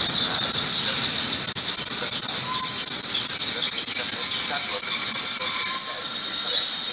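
A freight train of covered sliding-wall wagons rolling past at close range, with a steady high-pitched squeal over the rumble of the wheels.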